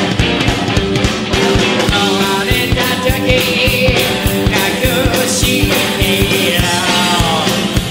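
Rock song playing: a fast, driving drum beat with guitars and singing.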